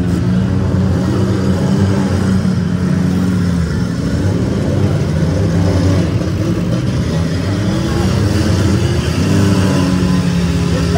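Demolition derby cars' engines running and revving together, a loud continuous mix with pitch rising and falling.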